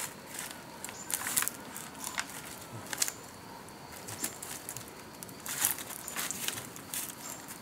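Rustling and crackling of dry palm fronds and leaf litter under bare feet as a person shifts and steps about, in scattered short bursts with quieter stretches between.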